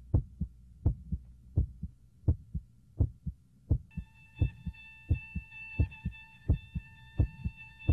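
Heartbeat sound effect: a steady double thump (lub-dub) about every 0.7 seconds. About halfway through, a steady high electronic tone joins it and holds.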